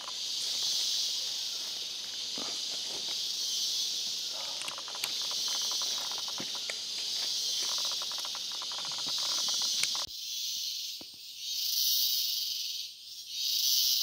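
Rainforest insect chorus: a steady high hiss, with faint crackling in the middle. About ten seconds in it changes to a pulsing drone that swells and fades roughly every second and a half.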